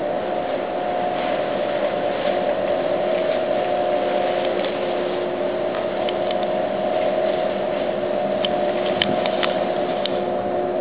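Steady machinery hum from a large container ship passing close by, a droning tone over a broad hiss. A few short clicks near the end.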